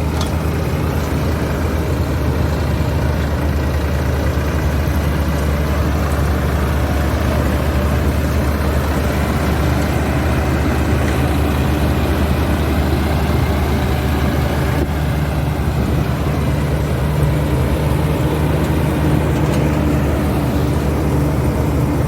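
Tractor's diesel engine running steadily with a deep, even hum, from maize silage-harvesting machinery.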